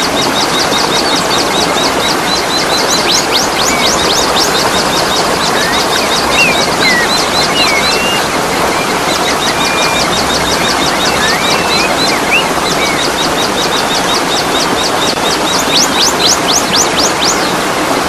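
Steady rushing water, like a waterfall, with birds calling over it: runs of quick, high chirps about five a second, and a few short whistled glides through the middle.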